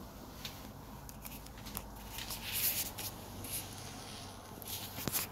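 Light shuffling footsteps and rustling, with a few scattered clicks, the loudest rustle about two and a half seconds in.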